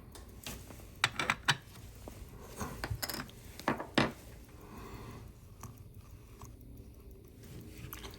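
Scattered light clicks and taps as small watchmaking tools and watch parts are handled and set down on the bench, most of them in the first four seconds, then only faint handling noise.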